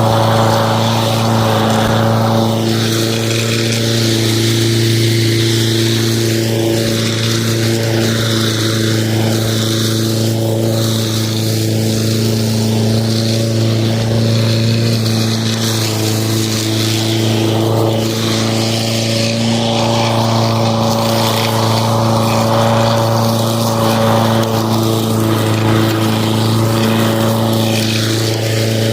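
Lawn mower running at a steady speed: a constant hum, with a rushing noise over it that swells and fades at times.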